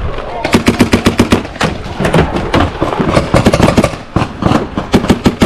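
Paintball markers firing rapid strings of shots, starting about half a second in and going on in quick irregular clusters.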